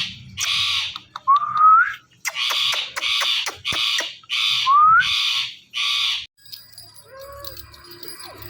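Ringneck parrots giving a run of short, harsh squawks, with two rising whistles between them. The calls stop about six seconds in.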